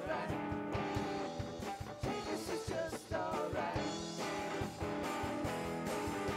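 Live band playing a rock song: electric guitar and electric bass over a steady beat, with a voice singing at times.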